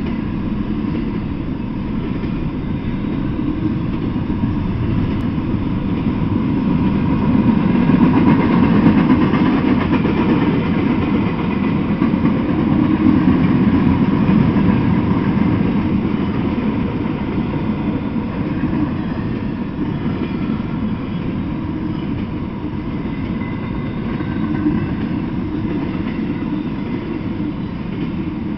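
Freight train cars rolling past on the track: a steady rumble of steel wheels on rail that grows louder about a third of the way in, then eases a little.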